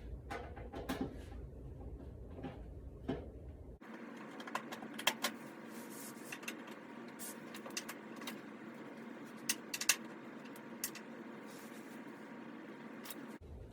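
Screwdriver working screws out of a clothes dryer's sheet-metal front panel: scattered clicks and scrapes of metal on metal, with sharper taps about five seconds in and again near ten seconds.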